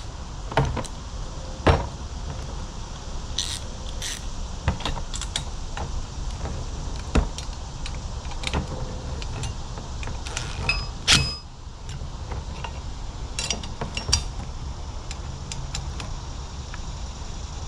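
Hand tools and bolts clicking and knocking against the bumper while it is bolted on: scattered sharp metal clicks, with one louder clank that rings briefly about eleven seconds in.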